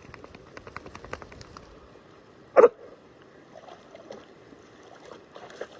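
One short, loud vocal sound, like a gasp or hiccup, about two and a half seconds in, over faint scattered clicking.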